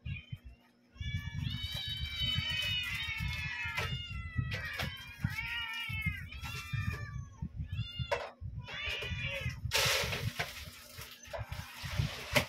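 A crowd of hungry cats meowing over one another, many overlapping rising-and-falling calls, begging at feeding time. Near the end a rustling, hiss-like noise runs for about two seconds under the meows.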